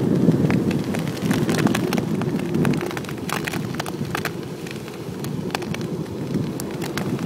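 Kite buggy's fat tyres rolling fast over a sand beach strewn with shells: a steady low rumble under a constant irregular crackle of sharp clicks as thousands of shells crunch under the wheels.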